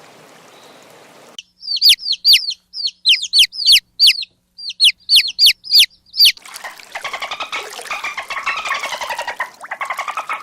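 A bird's sharp, high chirps, about a dozen, each a quick downward sweep, in loose groups. About six seconds in, frogs croaking in a fast, pulsing trill take over.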